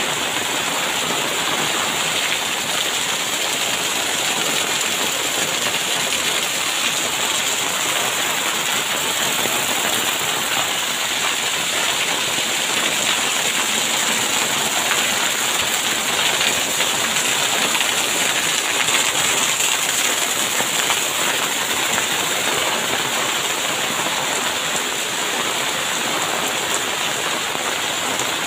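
Heavy rain pouring steadily onto a paved lane and the water pooled on it, a dense, even hiss with no break.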